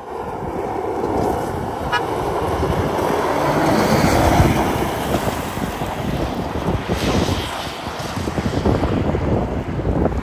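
Toyota Mark X 250G's 2.5-litre V6 revving hard as the car drifts on loose dirt, with wind rushing over the microphone. Loudest about four seconds in.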